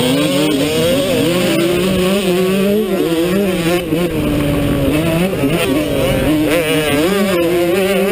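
Motocross dirt bike engine being ridden hard, its pitch rising and falling again and again as the throttle is opened and closed through the track's corners and straights.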